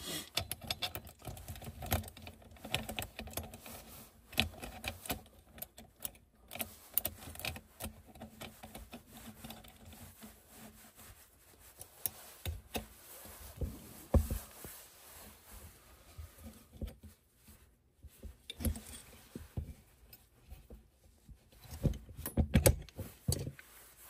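Irregular clicks, taps and light metal rattles as an aluminum smartphone video cage and its handles and screws are handled and repositioned during assembly.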